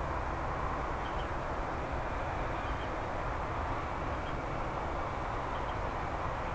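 Steady rushing engine noise from an ANA Bombardier Dash 8 Q400 turboprop airliner, with no rise or fall. Faint short high chirps recur about every one and a half seconds.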